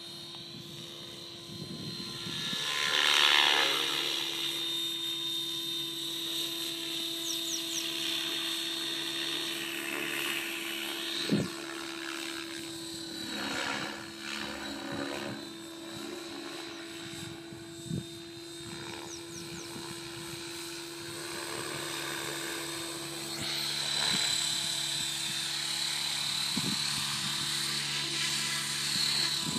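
Radio-controlled model helicopter in flight, its motor and rotor whining steadily, with the pitch gliding up and down as it manoeuvres. It is loudest a few seconds in, and there are a couple of brief knocks.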